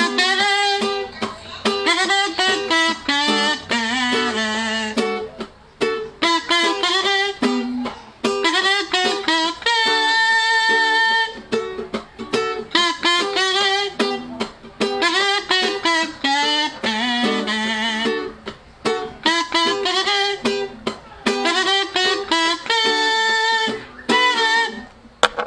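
Music without words: a melody line with vibrato and long held notes over a plucked guitar accompaniment, as the introduction before the singing.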